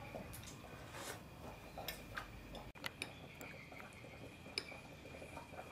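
Metal spoon lightly clinking against a glass bowl of braised beef stew: a few faint, scattered ticks while eating.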